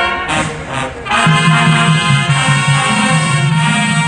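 Marching band playing, with the brass section leading. About a second in the music thins out briefly, then the full brass comes back in over a pulsing low bass line.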